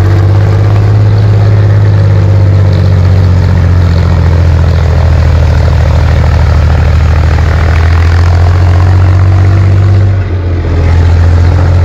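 Tank engine running steadily with a deep, even drone. The level dips briefly about ten seconds in.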